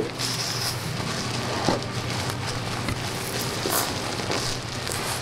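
Plastic bubble wrap and a nylon carry bag crinkling and rustling as they are handled.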